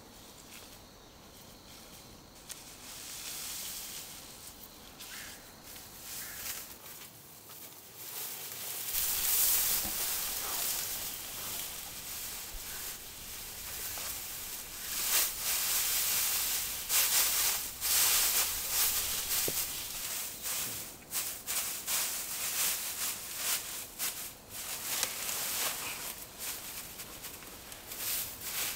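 Dry straw rustling as it is handled and shifted. Quiet at first, then louder in irregular bursts from about nine seconds in.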